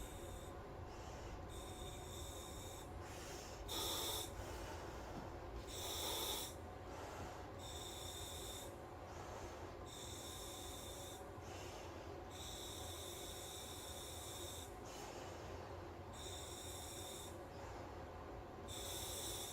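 Steady breathing through a SMACO full-face diving mask's regulator fed from a surface air supply. Each breath draws a hiss of air, about eight in all with a few seconds between them, and two short ones about 4 and 6 seconds in are the loudest. The breathing is through the nose and has a little more resistance.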